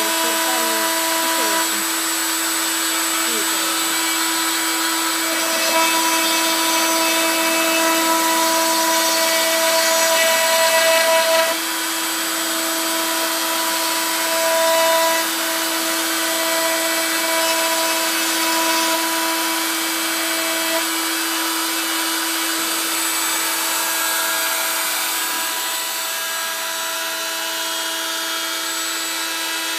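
OX CNC router milling lines into wood: the spindle runs with a steady whine over the hiss of the cutting, while higher pitched tones start and stop every few seconds as the stepper motors move the axes.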